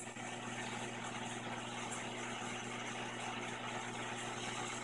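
Vintage eight-tube Scout 20 linear amplifier running powered up, its tubes lit: a steady low mains hum with an even rushing noise over it.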